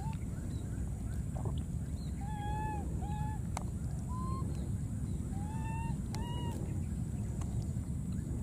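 Baby monkeys giving about half a dozen short, arching coo calls, each rising and falling in pitch, spaced irregularly over a steady low rumble.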